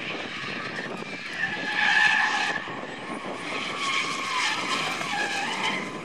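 Two drift cars sliding in tandem: engines revving high, with tyres squealing. The sound is loudest about two seconds in.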